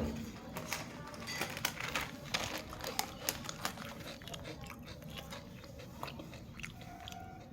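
Someone chewing crunchy snacks, namkeen and biscuits, close to the microphone: a run of crisp crunches that thins out after about four seconds.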